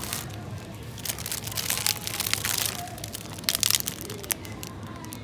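Plastic bread bags crinkling and rustling as they are handled and set into a plastic shopping basket, in several bursts of crackle, over a steady low background hum.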